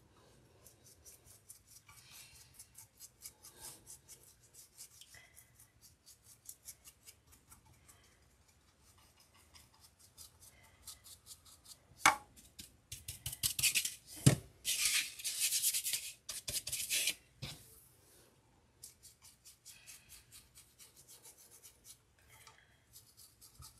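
Stiff-bristled paintbrush dry-brushing paint onto an air-dry foam clay pie crust: rapid, light scratchy bristle strokes, with a louder spell of scrubbing and a couple of sharp taps around the middle.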